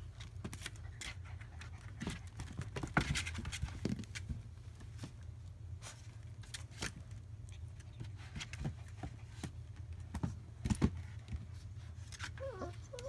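Five-week-old German Shepherd puppies shifting about in their bedding: scattered small scratches, scrapes and clicks over a steady low hum.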